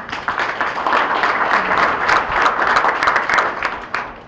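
Audience applauding with many hands clapping, dense and steady, then stopping about four seconds in.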